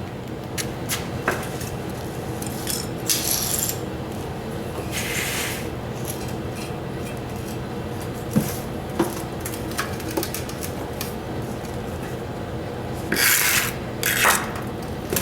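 Hand tools and metal parts clinking and knocking, with a few short raspy scraping bursts, over a steady low hum.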